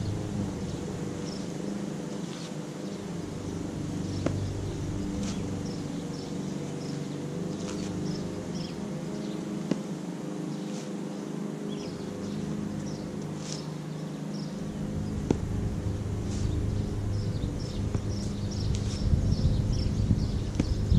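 A steady low mechanical hum with several level tones, its deepest part fading for a while in the middle and returning later. Short high chirps, like small birds, repeat throughout, and a few faint clicks sound now and then.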